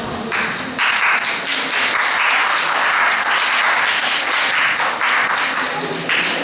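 Audience applauding, dense clapping that starts as the dance music ends and grows fuller about a second in.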